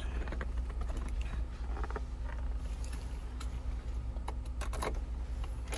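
Car being started after two nights in −22 °C cold without its block heater: a steady low hum with scattered clicks and knocks as the key is worked, the cold engine slow to catch.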